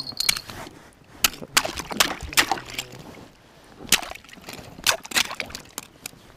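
Ice and frozen slush crunching and cracking at an iced-over fishing hole: an irregular string of sharp cracks and clicks.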